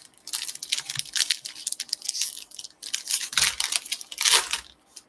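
Foil wrapper of a 2022 Bowman baseball card pack being torn open and crinkled by hand, a dense run of crinkling, loudest near the end.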